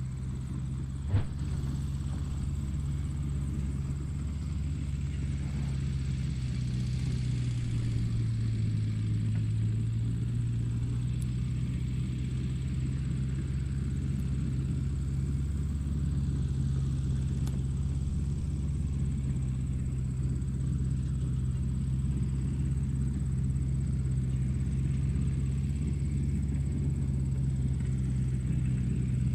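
Small motor and gearbox of a wired toy tractor running steadily under load as it tows a loaded toy truck, a low even hum. There is a single sharp click about a second in.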